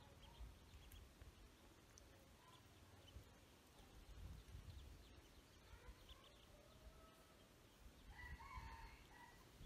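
Ducklings peeping faintly: a few scattered soft calls, with a short cluster of louder peeps near the end.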